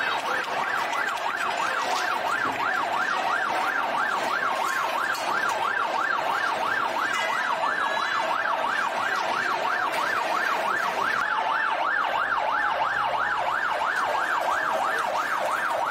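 Fire engine siren sounding a fast up-and-down yelp, about three cycles a second, held steady as the engine moves slowly through the crowd.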